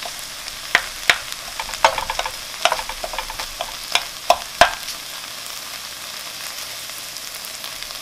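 Shrimp, onion and vegetables sizzling in a frying pan, with a spatula scraping and knocking against the pan as they are stirred. The stirring knocks come irregularly through the first half, and then the sizzle goes on steadily.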